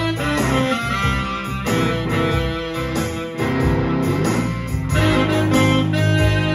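Explorer-style electric guitar played through a small Fender combo amp, together with a digital keyboard, in a blues instrumental.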